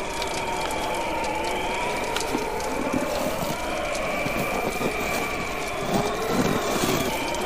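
Wind howling in slowly wavering, gliding tones, over the scattered crackle and pops of a wood bonfire.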